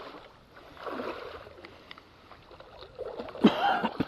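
Water sloshing and splashing in two bursts, about a second in and again near the end, with a sharp knock about three and a half seconds in.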